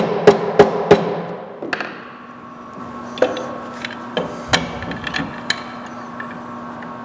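Rubber mallet tapping a glued wooden chest side into flush alignment: a quick run of strikes, about three a second, stopping about a second in, followed by a few scattered lighter knocks and clicks.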